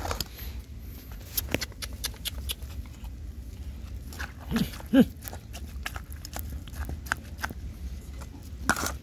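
Puppies giving two short yelps, about four and a half and five seconds in, the second the loudest, amid scattered clicks and scuffs as they move about the food bowls.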